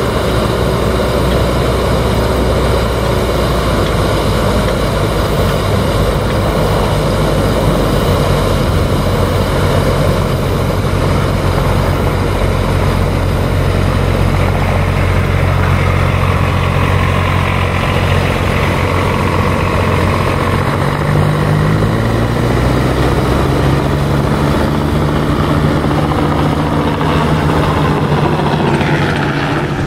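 New Holland T4 110 tractor's diesel engine running steadily while its wide flotation tires churn and splash through pond water. The engine note rises about two-thirds of the way in.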